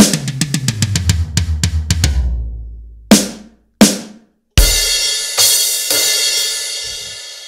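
Roland electronic drum kit played through its sound module: a fast fill of drum hits for about two seconds, two single hits, then cymbal crashes that ring out and slowly fade. Each pad sounds only its own drum, with no sympathetic ringing from the other drums.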